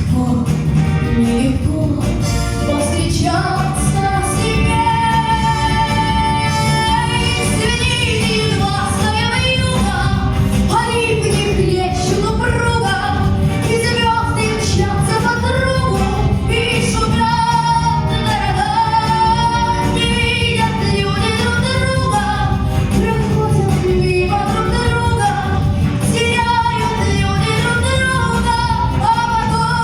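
A woman singing a slow melody with long held notes over instrumental accompaniment.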